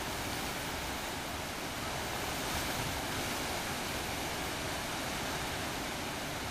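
Lachine Rapids of the St. Lawrence River: the steady, even rush of a wide stretch of white water and standing waves.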